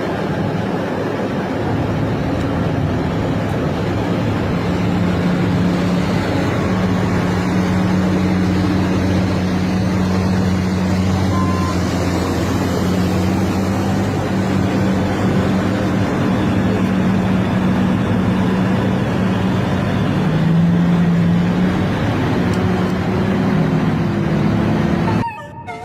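Heavy machine's diesel engine running steadily, with a slight dip and rise in pitch about twenty seconds in. The sound cuts off abruptly near the end.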